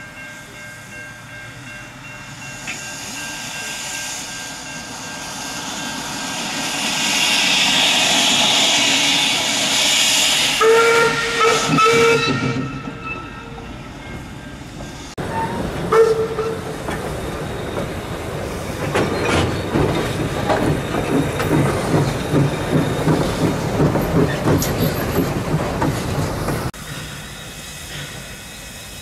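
Steam locomotive NM25 hissing steam louder and louder, then sounding its steam whistle in a few short blasts. After that comes another short whistle toot and a run of steady exhaust chuffs as the locomotive works the train away.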